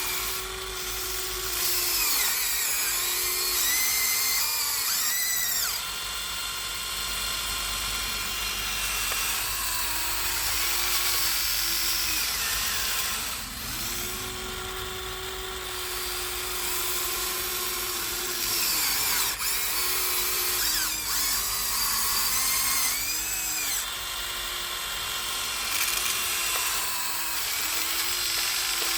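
Whine of a Huina 1593 RC excavator's electric motors and geared drives as it digs and loads. It runs in stops and starts, the pitch dipping and rising with each move.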